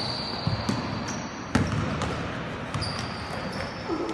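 Basketball game on an indoor court: the ball bouncing on the floor with scattered thuds, the loudest about one and a half seconds in, and short high squeaks from sneakers on the court.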